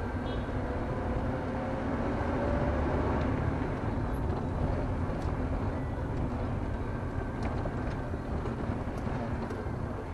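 A car driving slowly, heard from inside the cabin: steady engine and tyre noise, with a faint engine tone rising between about one and four seconds in.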